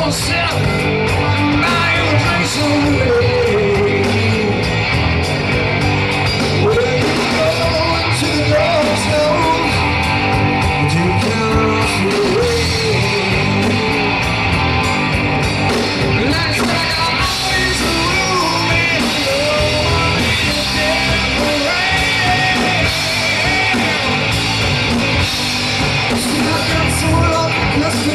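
Rock band playing live: a man singing lead over electric guitars and drums.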